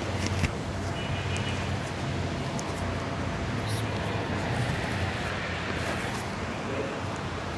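Steady low background hum and noise, with a few faint clicks.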